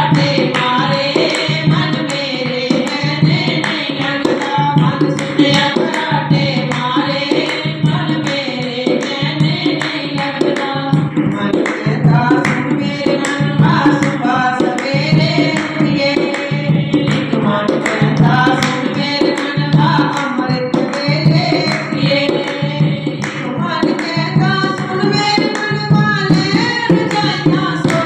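Devotional Punjabi bhajan sung with a tabla-like hand drum keeping a steady beat.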